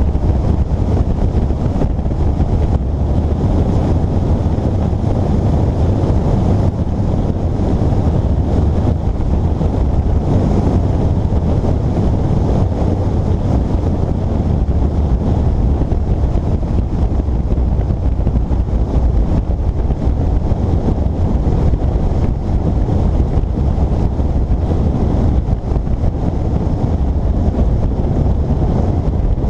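Steady wind noise rumbling on the microphone of a camera riding on a moving motorcycle, with the bike's running and road noise mixed in.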